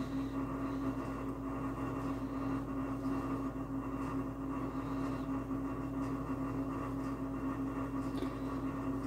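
A steady machine hum with one strong, unchanging low tone, like a fan or appliance motor running.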